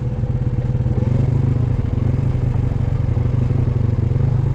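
ATV engine running as the quad rides along a trail, with a fast even pulse that gets louder about a second in as it picks up throttle.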